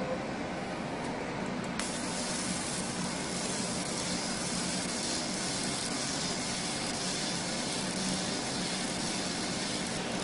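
Fiber laser cutter cutting a small circle in a thin gold sheet: a steady hiss from the cutting head's gas jet and the cut, which jumps up sharply about two seconds in, over a steady low machine hum.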